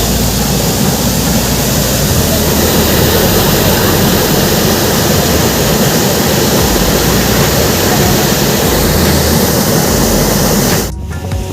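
Steady rush of a waterfall, a loud even noise of falling water that cuts off abruptly near the end.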